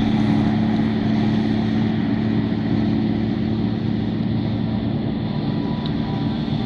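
John Deere self-propelled forage harvester running steadily while chopping maize and blowing it into a silage trailer, with the tractor hauling the trailer alongside: a constant machine drone with a steady hum and no change in pitch.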